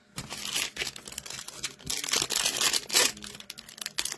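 Foil wrapper of a hockey card pack crinkling and tearing as it is pulled out and ripped open by hand, in irregular crackles that peak a few times.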